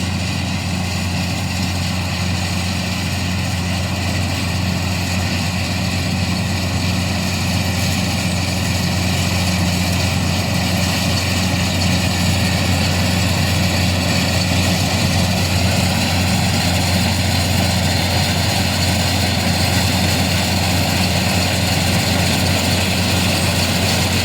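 Diesel farm machinery running steadily during a soybean harvest: a deep, even engine hum with a haze of mechanical noise over it, growing slightly louder about ten seconds in.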